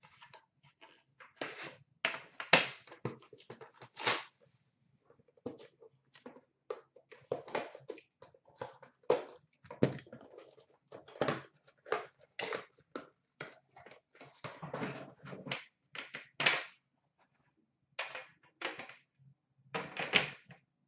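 Metal Upper Deck The Cup card tins being handled and opened: irregular knocks and clicks of the tins and lids, with crinkling of their plastic wrapping.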